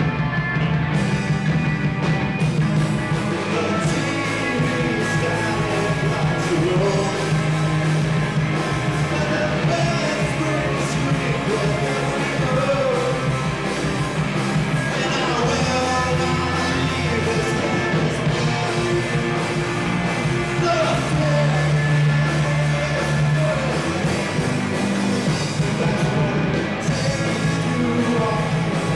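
Live rock band playing at full volume, with electric guitars and a drum kit under a lead vocalist singing.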